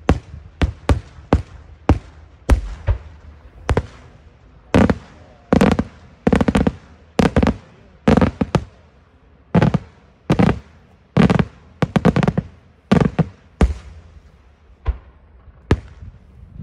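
Daytime fireworks display: aerial shells bursting overhead in an irregular series of sharp bangs. The bangs come in quick succession at first, then louder, more spaced bursts follow, each with a rumbling echo.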